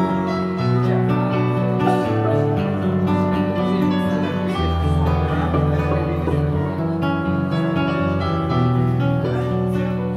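Grand piano and violin playing live together, a slow piece of held notes and chords that change about once a second.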